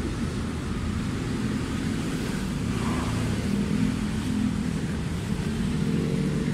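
A motor vehicle engine running steadily, a low even hum with no change in pace.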